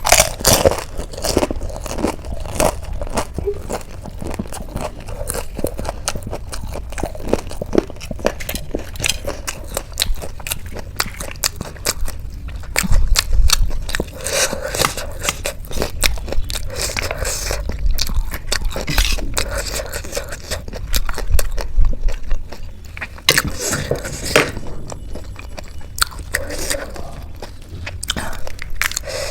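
Close-miked eating: crisp Indian street snacks crunched and chewed, with many sharp crackling bites in quick succession.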